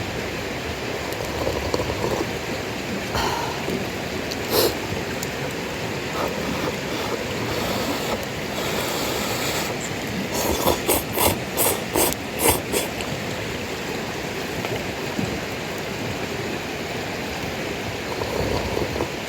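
Campfire of cold, damp firewood burning with a steady hiss. A quick run of about seven sharp clicks comes a little past halfway, after a single one earlier.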